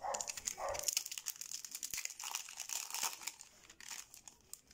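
Foil Yu-Gi-Oh booster pack wrapper crinkling and tearing as it is opened by hand, a dense crackle that thins out near the end.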